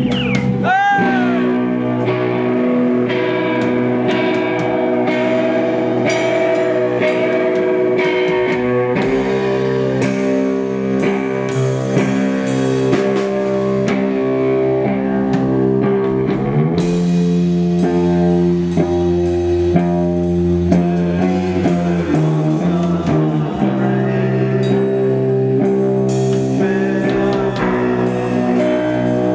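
Live rock band playing loud: electric guitars and bass hold heavy sustained chords over drums and cymbals. A guitar slides sharply in pitch right at the start.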